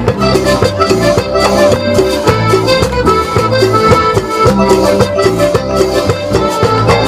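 A cumbia band playing an instrumental passage between sung lines, with a melody carried over a steady, regularly pulsing bass beat.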